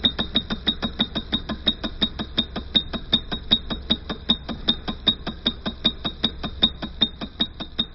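Rapid, evenly spaced clicking, about six clicks a second, over a steady high-pitched whine and a low hum.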